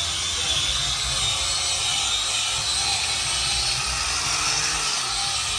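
Power grinder cleaning up metal pipes for welding: a steady, even grinding that runs without a break.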